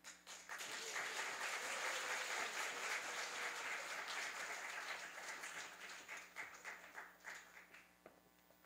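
Applause breaks out at once, dense for about five seconds, then thins to scattered claps that die away near the end.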